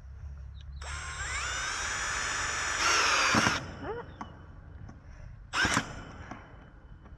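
Power drill driving a screw to fasten a wire clamp: the motor speeds up with a rising whine for about three seconds and gets louder near the end as the screw bites. A short sharp noise follows about two seconds later.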